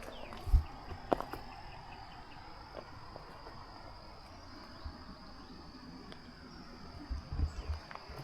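Insects buzzing as one steady high-pitched drone. A few low thumps are heard about half a second in, about a second in, and again near the end.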